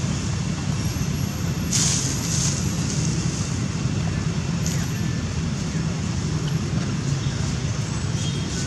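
Steady low rumble with a few brief hissing rustles, about two seconds in and again near five seconds.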